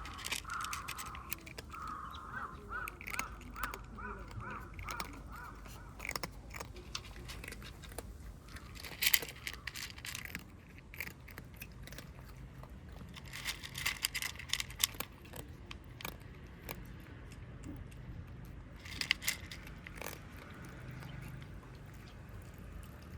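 A crow cawing in a quick series of short calls that stop about five seconds in, followed by scattered sharp clicks and three brief bursts of rustling.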